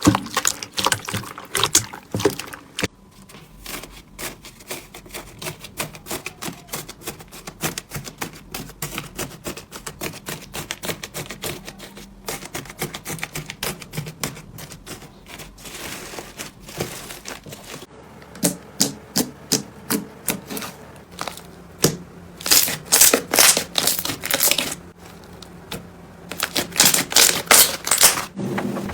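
Crunchy slime being squeezed, stretched and poked by hand, giving off rapid crackling pops and clicks, with louder quick runs of crackles near the end.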